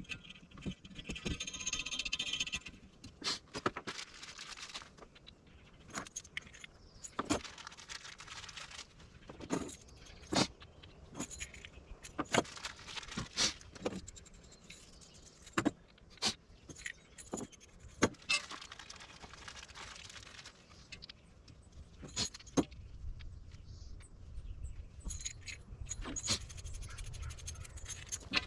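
Loose 3/8-inch bolts, washers and nuts clinking and rattling as they are handled and fitted through a plastic recovery board, with some scraping. Scattered sharp metallic clinks, a few every couple of seconds.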